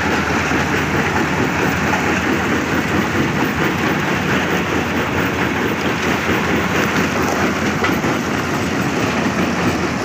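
Kobelco 380 excavator's diesel engine running steadily, a loud, unbroken mechanical noise with no separate knocks or pauses.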